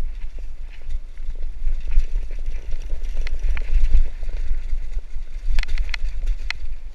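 Mountain bike riding fast down a rocky trail: a steady wind rumble on the action-camera microphone, with the clatter and sharp clicks of the bike over loose stones and a few louder knocks near the end.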